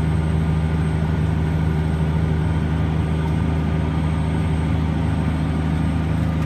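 Case IH Steiger STX535 Quadtrac's Cummins QSX15 diesel engine running under load while pulling an air seeding drill, heard inside the cab as a steady low drone.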